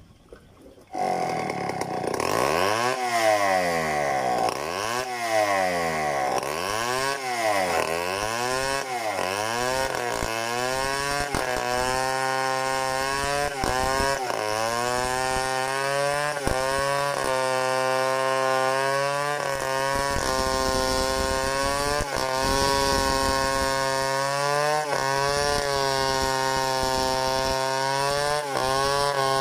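Large two-stroke chainsaw starting about a second in, revved up and down several times, then held at high revs as it rip-cuts lengthwise along a log for freehand milling into boards, its pitch sagging briefly now and then under load.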